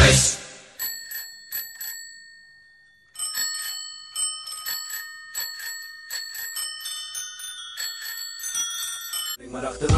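Bicycle bells ringing: a few dings that die away, a brief pause, then many rings overlapping at several pitches for about six seconds.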